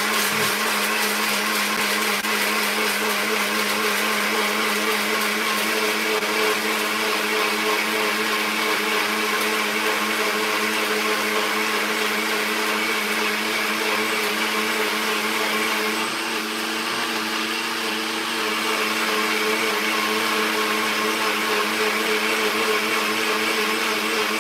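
Electric blender running steadily, blending pomegranate seeds, lemon and ginger with water; its motor note eases briefly about two-thirds of the way through.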